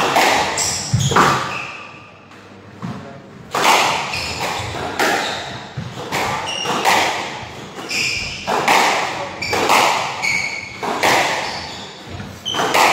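Squash rally: the ball smacking off racquets and the court walls about once a second, each hit echoing in the enclosed court, with a short lull about two seconds in. Shoe squeaks on the wooden floor between the hits.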